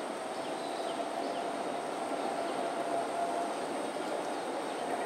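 Steady outdoor background hum with a low drone and a thin high whine, and a few faint short chirps in the first second and a half.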